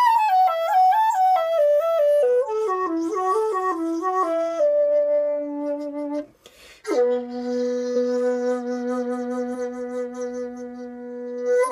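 A 2.1-foot Japanese shakuhachi of madake bamboo is played solo. It plays a quick run of notes stepping downward for about four seconds and settles on a held low note. After a short break it sustains one long, steady low note until the end.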